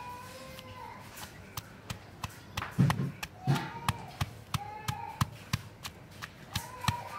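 Stone pestle pounding in a stone mortar, crushing garlic, shallot and lemongrass into a spice paste: irregular knocks starting about a second in, with a couple of heavier thuds near the middle.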